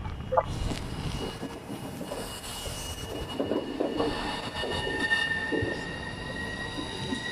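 Southeastern Class 395 Javelin electric train running into the platform and braking, with a steady rumble of wheels on rail, a few knocks from the carriages, and a high steady squeal from its brakes and wheels.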